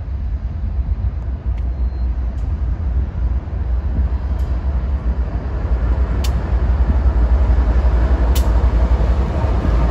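Lead GE ES44AC and ES44DC diesel locomotives of a BNSF stack train approaching and passing, a deep engine rumble that grows louder about six seconds in. A few sharp clicks stand out over it.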